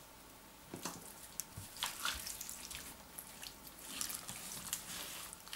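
Hands sprinkling dry spices onto an oiled raw leg of lamb and then lifting and turning the meat: faint, scattered soft clicks and handling noises, busier in the second half.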